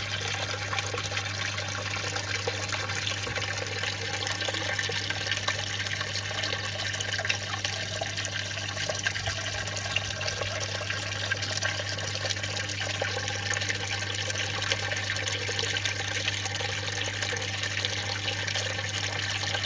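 Steady trickling and splashing of water in a fish tank, over a constant low hum.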